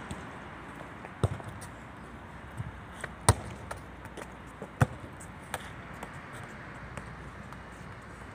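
A football being kicked and bouncing on stone paving: three loud thuds one to two seconds apart, the loudest about three seconds in, with a few lighter taps between them over a steady background noise.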